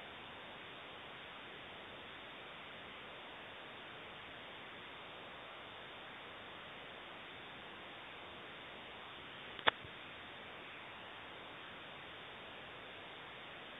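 Steady background hiss with one sharp click about ten seconds in.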